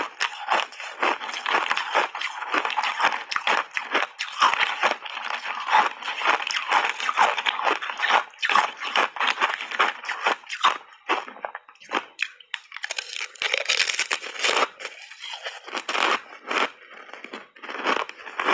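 A person crunching and chewing a mouthful of thin ice chips coated in matcha powder and milk: a dense run of crisp crunches, with a short lull about two-thirds of the way through.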